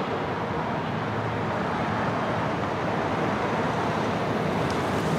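2015 GMC Sierra Denali pickup with its 6.2-litre V8 driving toward the camera on asphalt: steady engine and tyre noise that builds a little at first and then holds.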